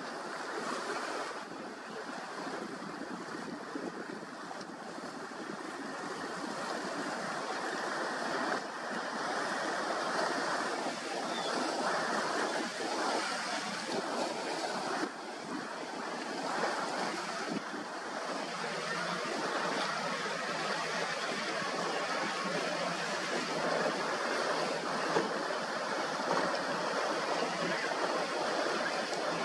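Surf and rushing water with wind on the microphone, a steady noise that grows louder over the first several seconds and then holds.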